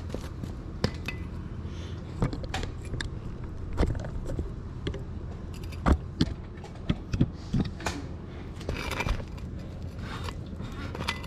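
Irregular metallic clicks, clinks and knocks of tools and small metal parts being handled, over a steady low background hum.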